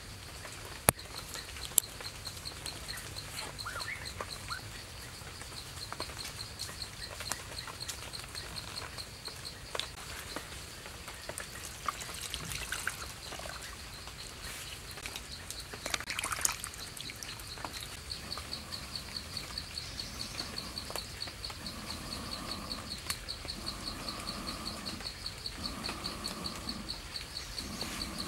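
Forest ambience led by an insect chirping in a fast, even, high-pitched pulse. Two sharp clicks come in the first two seconds, and a low call repeats four times near the end.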